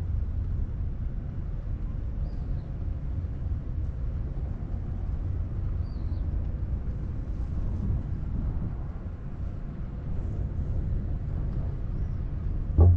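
Steady low rumbling noise outdoors, with a few faint high chirps, and a loud thump just before the end.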